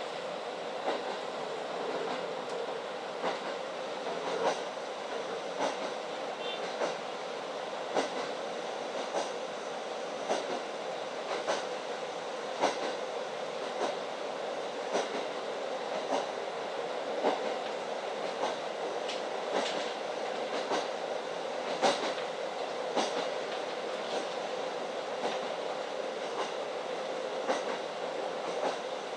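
JNR KiHa 40 diesel railcar running at steady speed, heard from inside the passenger cabin. A steady running noise is broken by the wheels clicking over rail joints at an even beat, a little slower than once a second.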